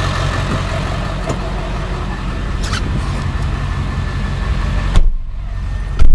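Ford 7.3-litre Power Stroke V8 turbo diesel idling with a steady low rumble, a few clicks and knocks over it as someone climbs into the cab. About five seconds in, a door shuts with a thump and the sound turns muffled, followed by a loud low thump just before the end.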